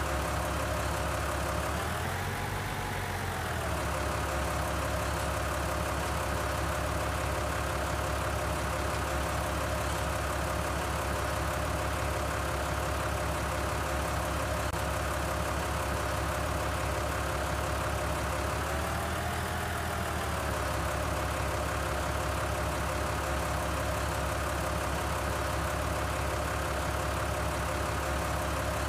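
An engine sound running steadily, like a tractor at idle, with the pitch rising and falling briefly twice: about two seconds in and again near twenty seconds, like a light rev.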